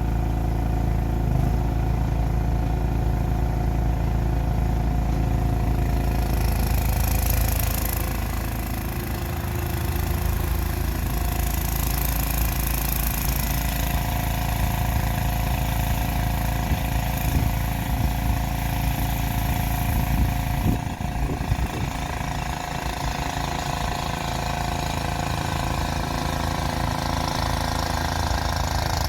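12 hp MTD Snowflite snowblower engine running steadily. A higher hiss joins about seven seconds in and drops away again near twenty-one seconds.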